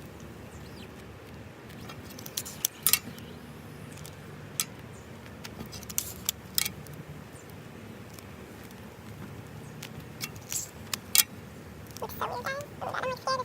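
Adhesive tape being pulled off the roll and wrapped around a foam squishy toy: scattered crackles and clicks, with a short pitched squeal near the end.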